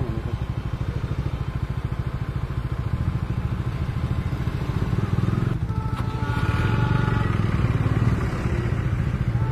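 Motorcycle engine idling with a steady low pulsing beat, getting a little louder about halfway through. A steady higher tone sounds in the background for a couple of seconds after the middle.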